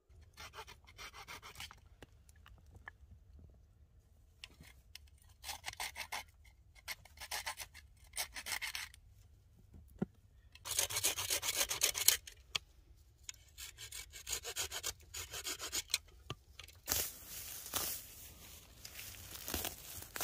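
Repeated spells of rapid dry rasping and rustling from dry branches and brush being handled and dry grass being pulled up by hand. The loudest spell comes a little past the middle.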